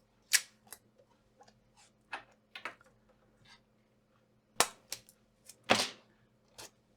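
Kapton tape being pulled from its roll, cut and pressed down by hand: irregular sharp clicks and short crackles, with a few louder snaps about a third of a second, four and a half seconds and six seconds in.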